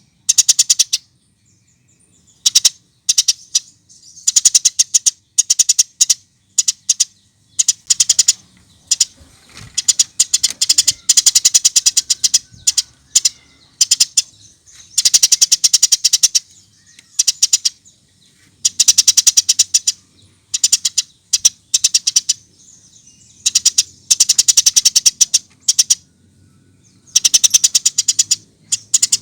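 Eurasian tree sparrow calling in bouts of rapidly repeated high chirps. Each bout lasts a second or two, with short pauses between.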